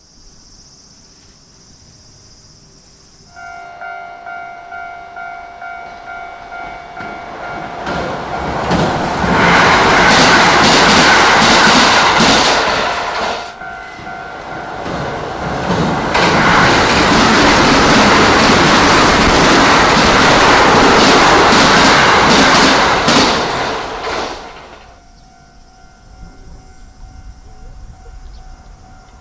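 A Japanese level-crossing warning bell starts ringing about three seconds in, a two-tone ding repeating about twice a second. Kintetsu electric trains then pass over the crossing and the iron bridge in two long, loud surges of wheel and track noise with rapid clatter from the rail joints. The bell keeps ringing after they have gone.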